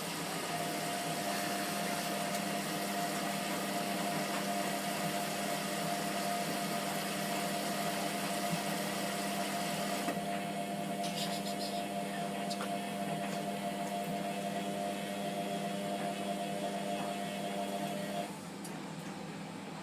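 Hotpoint Aquarius WMF720P washing machine running with a steady hum over a wash of water noise, which cuts off abruptly near the end.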